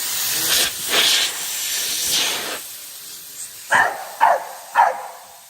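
A spraying hiss that surges a few times over the first couple of seconds and then fades. After that a dog barks three times in quick succession.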